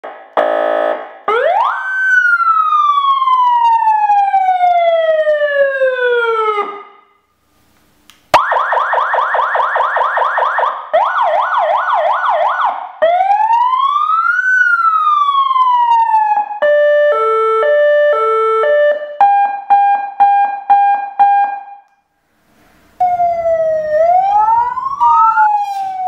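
Electronic siren amplifier driving a horn loudspeaker, stepped through its tones: a short buzzing horn blast, then a wail that rises quickly and falls slowly, a fast yelp, a rising-and-falling wail, a hi-lo two-tone, a pulsing steady tone and another rising-and-falling wail. There are brief pauses between some of the tones, and a sharp click about eight seconds in.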